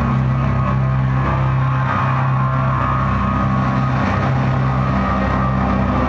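Loud live electronic music: a heavy sustained low drone with dense layered tones above it, no beat.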